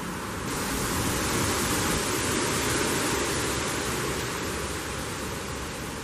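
A gust of wind rushing through trees, rustling dry autumn leaves. It swells about half a second in and slowly eases off toward the end.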